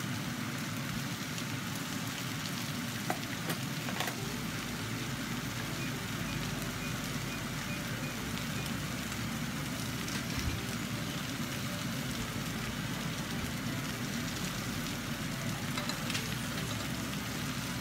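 Chicken pieces and onions sizzling steadily as they fry in a nonstick saucepan, with a couple of faint clicks about three and four seconds in.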